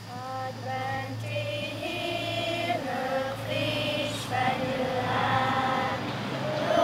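A choir singing a slow song, its sustained notes starting softly and growing louder, over a steady low hum.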